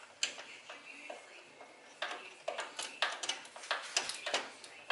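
Screwdriver driving a screw into the plastic side panel of a window air conditioner: a single click, then a quick irregular run of ticks and scrapes from about two seconds in.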